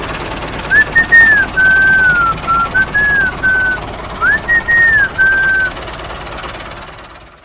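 A whistled tune: two short melodic phrases of gliding notes, the second starting like the first, over a steady hiss that fades out near the end.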